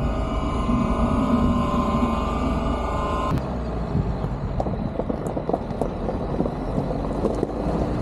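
A car driving over a dirt road, its running noise carrying a steady hum of several tones. About three seconds in this cuts off abruptly to tyres rolling over loose gravel: a rough rumble with scattered crackles.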